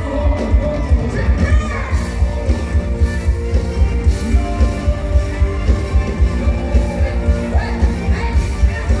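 Loud live dance-pop music through a concert PA, with a heavy bass beat about two beats a second and a voice singing over it.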